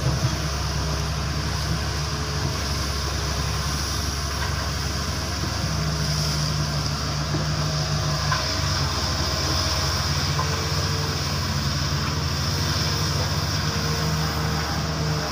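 Diesel engine and hydraulics of a XCMG long-reach excavator running steadily as it lifts its long arm and swings, with a low steady drone that grows louder for a couple of seconds about six seconds in.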